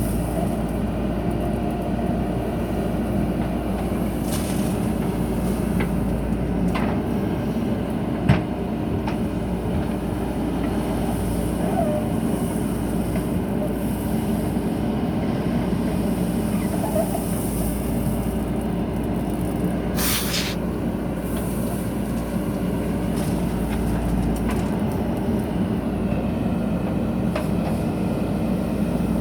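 JCB backhoe loader's diesel engine running steadily as the machine works, with a sharp knock about eight seconds in and a brief hiss about twenty seconds in.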